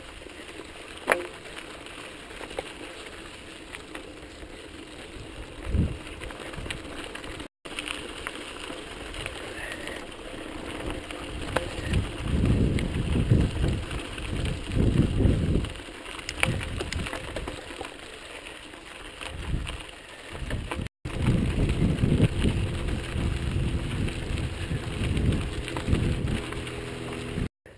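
Mountain bike rolling over a rough dirt trail, heard through a handlebar-mounted camera: tyre noise on the gravel and the bike rattling, with wind buffeting the microphone in gusts. The gusts are strongest about halfway through and again over the last few seconds. Two brief dropouts break the sound.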